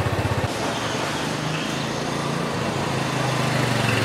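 Motor scooter engine running just after being started, a steady pulsing hum whose pitch lifts slightly after about half a second and again near the middle.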